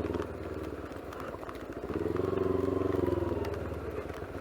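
250 cc motorcycle engine running at low speed; its note swells about two seconds in as the throttle opens, then eases off. Scattered sharp ticks of hail sound over it.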